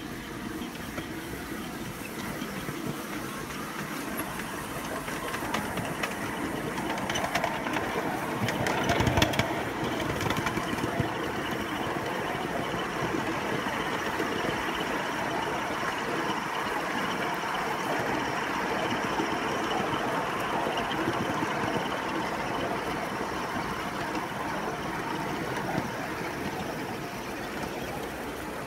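Small 3.5-inch gauge ride-on garden-railway train rolling along newly laid track: a steady rolling noise of small wheels on the rails. It grows louder over the first several seconds, with a sharp knock about nine seconds in.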